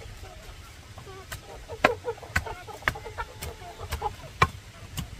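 Chickens clucking, with a series of sharp knocks about two a second starting a little over a second in.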